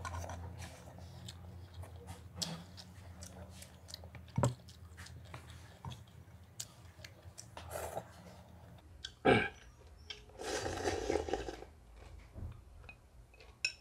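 A person eating Khmer noodle soup close to the microphone: chewing and slurping noodles, with small clicks of a metal spoon on a ceramic bowl. Near the end comes a longer slurp as broth is drunk straight from the bowl.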